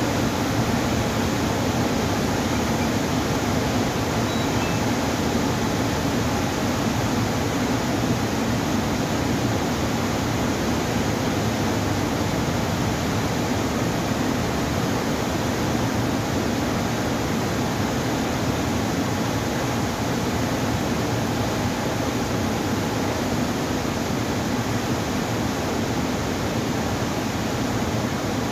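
Water rushing steadily through the open sluice gates of a river weir and churning in the basin below, the river running high in the rainy season.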